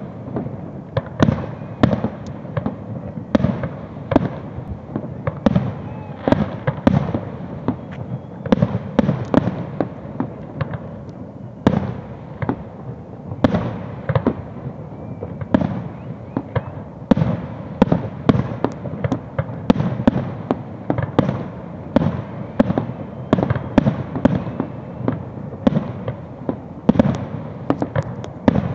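Aerial firework shells bursting in a continuous barrage of sharp bangs, about two or three a second.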